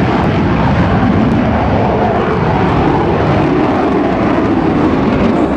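Jet engine noise from Thunderbirds F-16 Fighting Falcon fighters flying overhead: a loud, steady rushing roar with no breaks.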